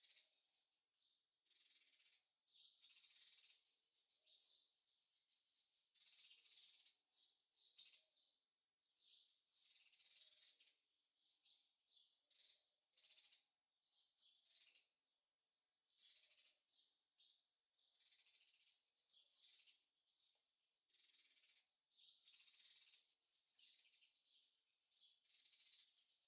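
Faint birds chirping in a forest ambience, short bursts of high calls repeating every second or two.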